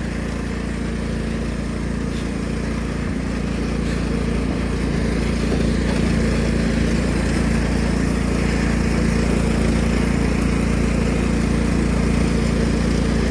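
Engine of a 1999 Cub Cadet HDS 2135 riding lawn mower running steadily, growing gradually louder over the first several seconds, then holding even.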